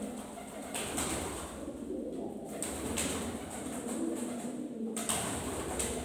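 Fancy pigeons cooing, a low throaty cooing.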